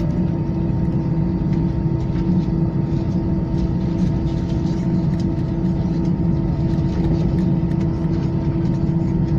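Aircraft engines running with a steady drone and a few constant humming tones, holding the same pitch and loudness throughout.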